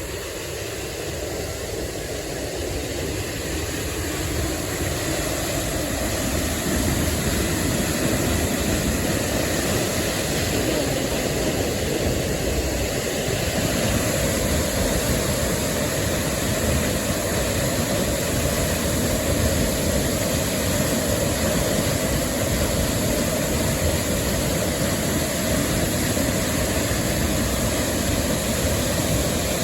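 Large waterfall's steady rush of falling water, growing louder over the first six seconds and then holding even.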